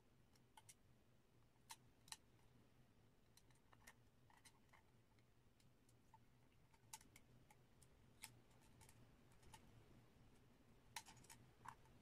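Faint, irregular small clicks and ticks of steel tweezers working against an iPhone 5's aluminium housing and tiny button parts, with a few sharper clicks about two seconds in and near the end, over a faint low hum.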